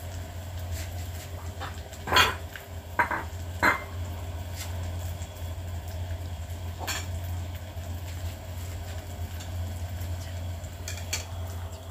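A few light clinks and knocks of cookware around a nonstick frying pan, scattered through, the loudest about two seconds in, over a steady low hum.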